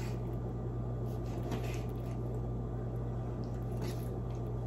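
Faint, soft squishing of a table knife cutting through a grilled squid and fingers pulling at the flesh, over a steady low hum.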